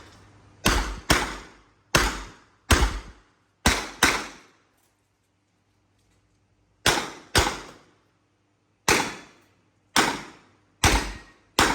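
Handgun shots fired in a practical-shooting course of fire, about thirteen in all, mostly as quick double taps about half a second apart, each shot followed by a short echoing tail. There is a pause of about two and a half seconds midway, then the shooting resumes at a slower, more even pace.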